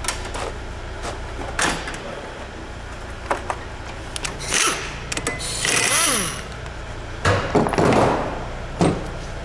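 Metal clinks, knocks and scraping of hand tools and brake parts as a car's rear brake disc is unbolted and worked off the hub, with a cluster of louder knocks near the end.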